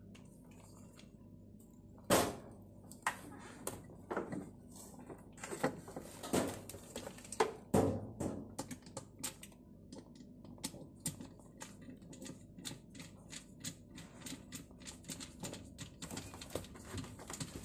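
A Phillips screwdriver drives the centre screw back into the pulsator of an LG top-loading washing machine, fastening it onto its shaft after a new pulsator gear has been fitted. There is a sharp click about two seconds in, then a long run of small, irregular clicks and taps.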